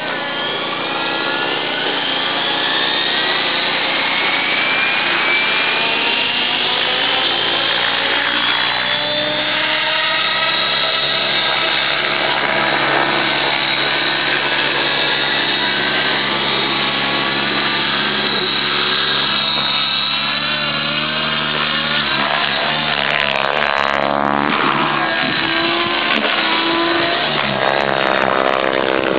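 Thunder Tiger e720 electric RC helicopter's motor and rotor whining as it spools up, the pitch rising over the first several seconds, then a steady whine in flight that wavers up and down near the end as it manoeuvres.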